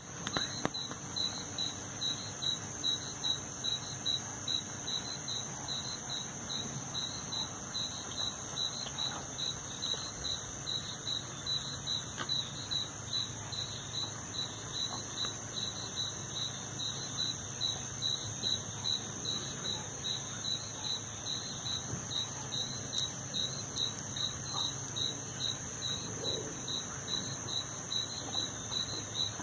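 Night insects calling together: a steady high-pitched trill with a second chirp pulsing evenly about two or three times a second over it.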